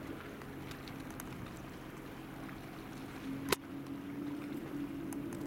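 Fridtjof Nansen-class frigate HNoMS Thor Heyerdahl's machinery, a steady low hum carrying across the water, with one sharp click about three and a half seconds in.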